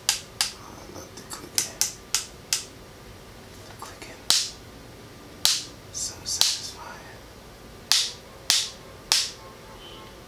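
About a dozen sharp clicks at irregular intervals as the limbs of a plastic Bearbrick figure are turned in their joints, with some brief handling rustle between them.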